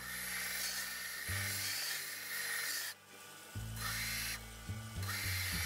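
Plastic sheet pressed against the running abrasive belt of a homemade belt grinder to round its corners: a gritty rasping in several passes. It breaks off briefly about three seconds in and again about four and a half seconds in.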